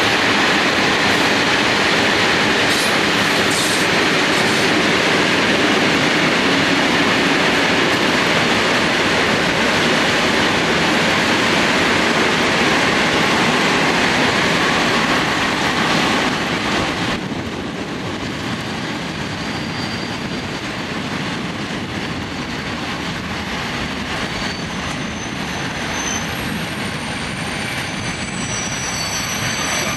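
Long freight train of covered bogie hopper wagons rolling past with steady wheel-and-rail noise. It eases off a little about halfway, and faint high wheel squeals come in over the last third.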